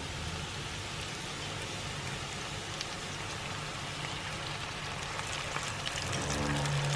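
Lamb and onions sizzling steadily in a frying pan, a fine crackling hiss. Near the end the sizzle grows louder as a saffron-coloured liquid is poured into the pan.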